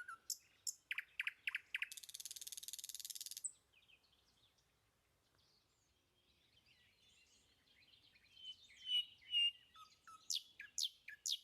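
Small songbirds chirping: short high chirps, a rapid buzzy trill about two seconds in, a quiet spell, then more twittering and quick high downward whistles near the end.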